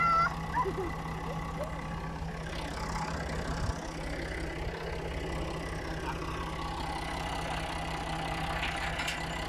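Ford farm tractor's diesel engine idling steadily with a cultivator hitched, a constant low hum. A short high-pitched sound stands out at the very start.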